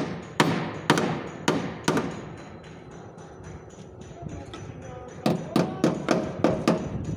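Hammer blows on the sheet-metal rear fender of a Hyundai Tucson as a dent is worked out. There are five strikes about half a second apart, a pause of about three seconds, then six quicker strikes, each with a short metallic ring.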